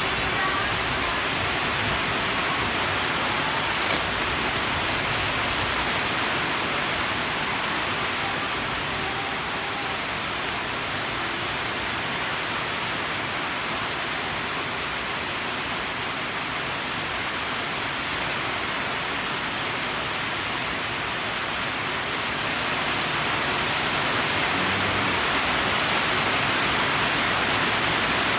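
Steady hiss with no distinct events, louder in the upper range, dipping a little in the middle and rising again near the end.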